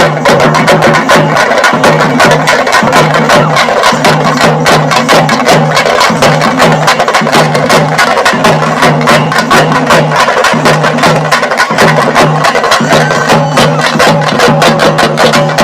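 Loud, fast percussion music: rapid, evenly spaced sharp strokes over a low drum beat that repeats about twice a second.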